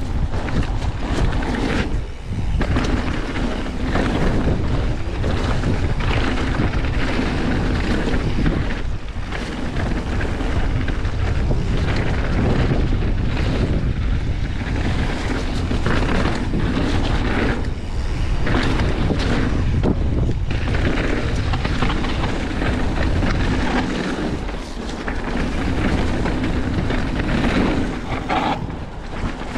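Wind rushing over the camera microphone as a mountain bike rolls fast down a dirt trail, with tyre noise and frequent knocks and rattles as the bike jolts over bumps.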